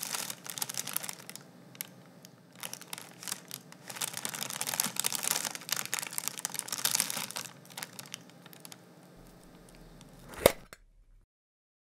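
Tissue paper crinkling and tearing as a gift is unwrapped by hand, in irregular rustles. A single sharp click near the end.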